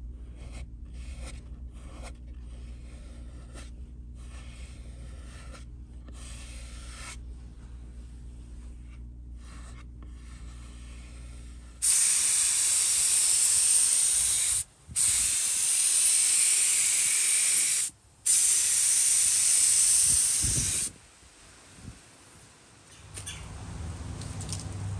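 Paint spray gun spraying in three long bursts with two brief pauses between them, a loud steady hiss. Before it comes about twelve seconds of a steady low hum with faint light taps.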